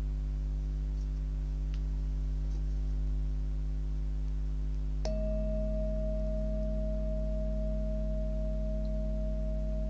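Himalayan singing bowl ringing in a steady blend of overlapping tones. About five seconds in it is struck with a mallet, and a fresh, clear tone rings out and sustains. A low steady hum lies underneath.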